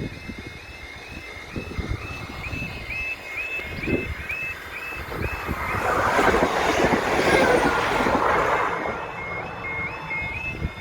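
Level crossing alarm sounding in a steady two-tone warble, with wind buffeting the microphone. About halfway through, a Class 755 train passes, its noise swelling and fading over about three seconds and drowning out the alarm, which then comes back to the fore.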